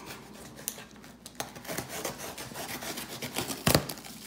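Cardboard shipping box being opened by hand: the flaps and packing tape scrape and rustle in a run of short scratchy strokes, with one louder knock a little before the end.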